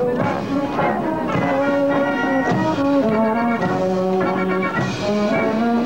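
Military brass band playing a tune on the march, a series of held brass notes stepping from one pitch to the next.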